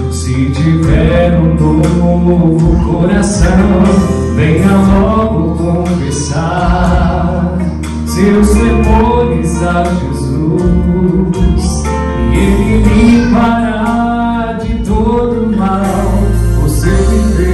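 Gospel worship song: singing over steady instrumental accompaniment with a sustained bass.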